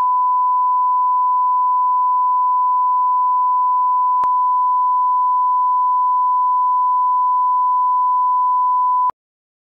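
Broadcast line-up test tone accompanying colour bars: one steady pure pitch at 1 kHz, with a faint click about four seconds in, cutting off suddenly near the end.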